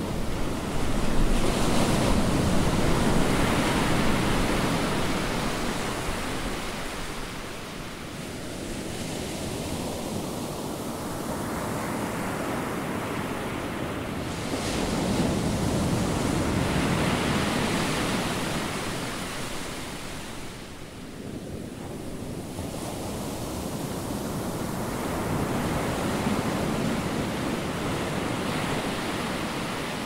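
Ocean surf: waves breaking and washing up a beach, swelling three times (near the start, about halfway through and near the end) and easing off in between.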